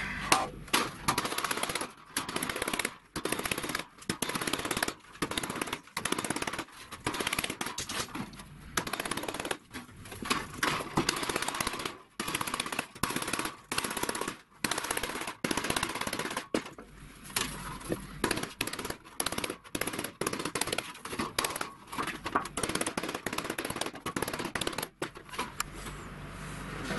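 Small hammer tapping a thin sheet-metal panel on a wooden workbench in quick runs of sharp metallic taps with brief pauses, flattening a bulge that came out the wrong way around a row of punched holes.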